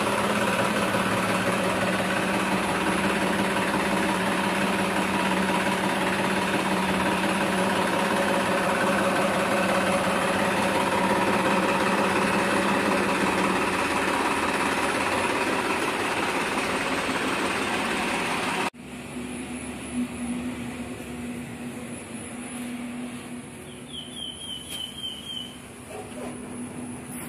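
Tafe 9500 tractor's turbocharged diesel engine running steadily. Its sound cuts off abruptly about two-thirds through, leaving a quieter background with a brief run of bird chirps near the end.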